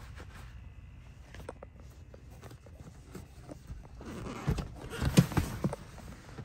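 Soft rustling and small clicks of handling against leather car seats, building to a louder cluster of rubs and knocks about four to five and a half seconds in.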